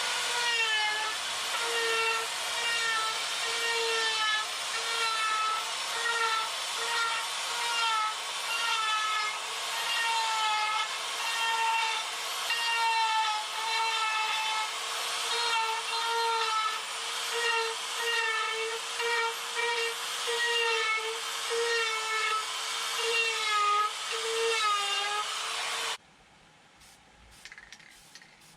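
High-speed power carving tool cutting into a wooden board, its motor pitch dipping briefly about once a second as it bites into the wood and recovering between cuts. It stops abruptly near the end.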